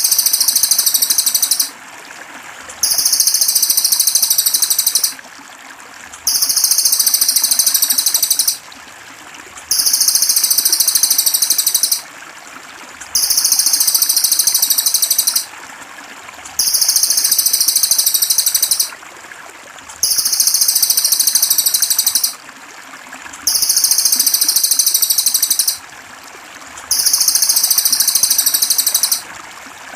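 Looped masteran recording of a cililin songbird: a dense, very high-pitched trilling phrase about two and a half seconds long, repeated every three and a half seconds or so with short gaps, over steady trickling water.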